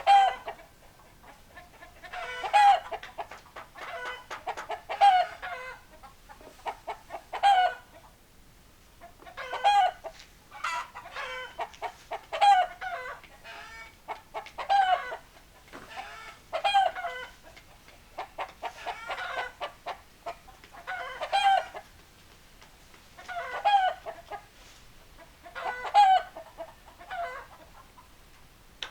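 Chickens calling loudly, a string of short pitched calls repeating every two to three seconds.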